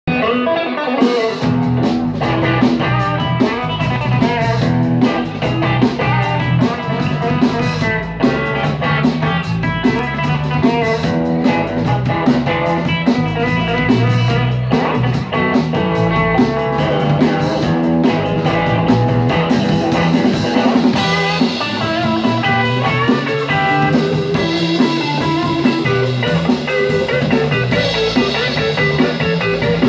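Live rock band playing: electric guitar over bass guitar and drums, loud and continuous.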